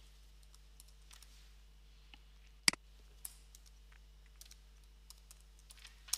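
Computer keyboard being typed on: scattered, unhurried keystrokes, with one much louder key strike a little under halfway through.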